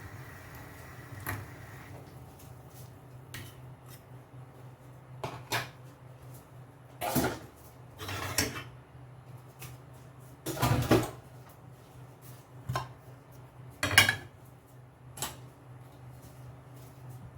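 Kitchenware clattering: utensils and dishes clinking and knocking about a dozen times at irregular intervals, the loudest a little past the middle, over a low steady hum.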